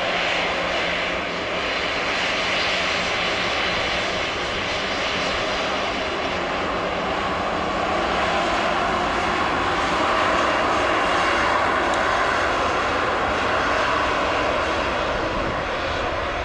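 Jet engines of an American Airlines twin-engine airliner rolling along the runway: a loud, steady jet noise that swells to its loudest about ten seconds in, as the plane passes broadside, then eases a little as it moves away.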